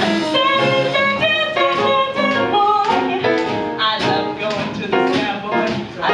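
Live jazz trio: upright piano playing quick runs of notes over a drum kit with cymbal strokes, and a woman singing into a microphone.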